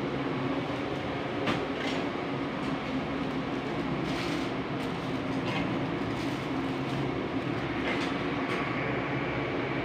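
Steady cabin noise of a vehicle on the move: an even engine drone and road rumble with a low hum, heard from inside.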